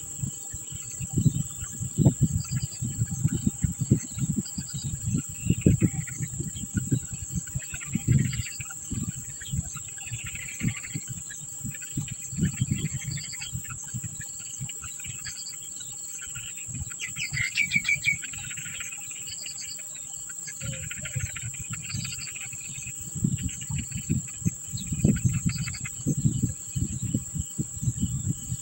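Crickets or other insects trill steadily and high-pitched throughout, with intermittent bird calls, busiest around the middle. Frequent low thumps and rumbles on the microphone are the loudest sounds.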